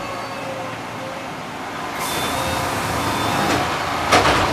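Electric commuter train's sliding doors closing at a station: a hiss of air comes in about halfway through, then a single sharp thump near the end as the doors shut.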